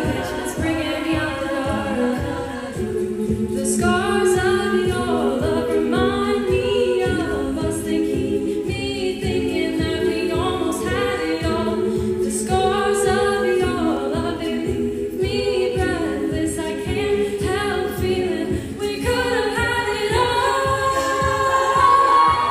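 Treble-voice a cappella group singing in close harmony over a beatboxed beat of about two low kicks a second. Near the end a high note is held steady.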